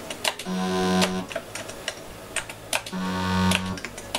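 Amiga 4000 audio test tones from the Logica diagnostic's manual audio test: two low, buzzy bleeps of just under a second each, about two and a half seconds apart. Sharp computer-keyboard clicks fall between them as the test's channels are stepped through.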